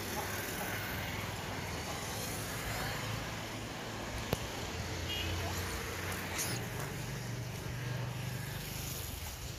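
Steady outdoor background noise with a low rumbling hum, a single sharp click just after four seconds in, and a brief faint high squeak about five seconds in.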